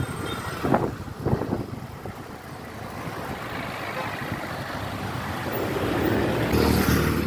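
Road traffic: cars and trucks driving by on the street, with a couple of short knocks about a second in and a vehicle engine getting louder near the end.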